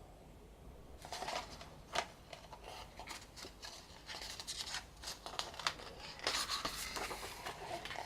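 Pages of a large album photo book being turned and handled: a run of paper rustles with sharp little flaps and clicks, starting about a second in.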